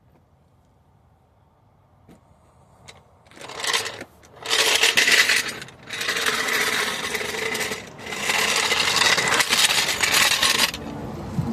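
Impact wrench running lug nuts onto a wheel: one short burst about three seconds in, then three longer hammering runs of a couple of seconds each, with a steady tone through them.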